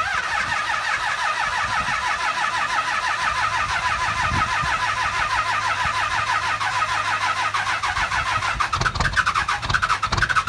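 A 2001 24-valve Cummins 5.9 L inline-six diesel being cold-started in about 12°F after sitting without a block heater. It cranks over on the starter with an even, rapid rhythm for about eight seconds, then begins catching and firing unevenly near the end.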